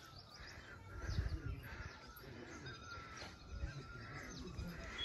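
Birds chirping and calling in short, repeated notes, with a few faint low rumbles underneath.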